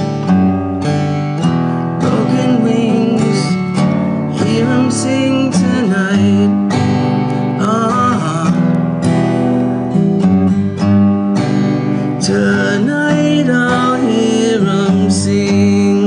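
Acoustic guitar strummed steadily, a song's passage without words.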